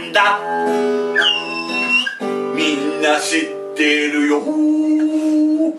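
Live song: an acoustic guitar strummed under a man singing held notes. A high whistle tone from a small hand-held toy whistle cuts in about a second in.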